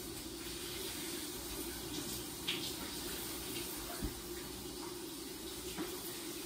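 Shower running behind a closed glass door: a steady hiss of falling water, with two small knocks, about two and a half and four seconds in.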